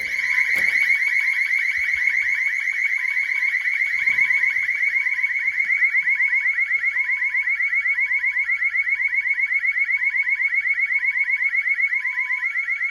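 School building's security alarm siren, set off by a door sensor, sounding loud and continuously. It is a high-pitched, rapidly pulsing tone over lower beeps that alternate between two pitches about once a second.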